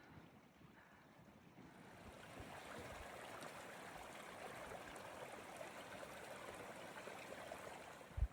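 Steady rush of flowing water, like a mountain stream, swelling about two seconds in and then holding. A low thump near the end.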